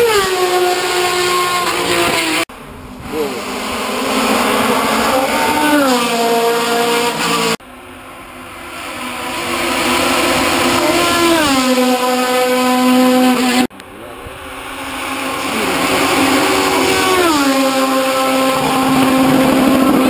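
Hill-climb race cars driving past one after another, in four short clips split by sudden cuts. In each, the engine's loud, high note falls in pitch over about a second, then holds steady and grows louder.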